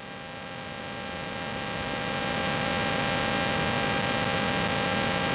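Background hiss with a steady electrical hum and no other event. It swells in level over the first few seconds and then holds steady.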